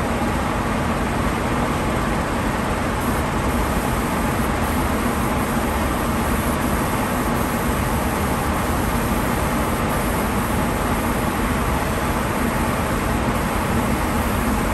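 Steady rush of compressed air from a spray gun spraying Cerakote onto a wooden rifle stock, over the even drone of the spray booth's air, with a faint low hum.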